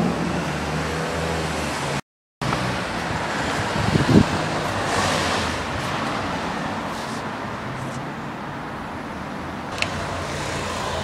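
Ferrari 599 GTO's 6.0-litre V12 idling with a low, steady note over street noise. The sound cuts out completely for a moment about two seconds in, and there is a short loud burst about four seconds in.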